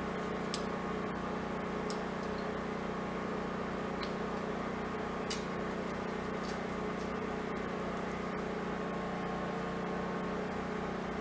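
A steady mechanical hum that does not change, with a few faint light clicks.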